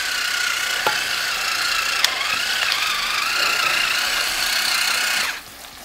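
Battery-powered electric pepper grinder's small motor running with a steady whine as it grinds black pepper, with a couple of sharp clicks; it cuts off suddenly about five seconds in.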